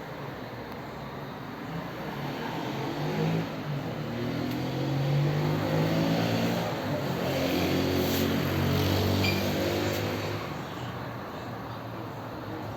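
A motor running with a humming tone in two spells, swelling louder around the middle and easing off near the end.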